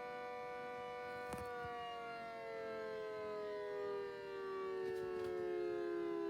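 Gents air raid siren sounding one held, many-toned wail that slowly falls in pitch. A faint click comes about a second in and two more near the end.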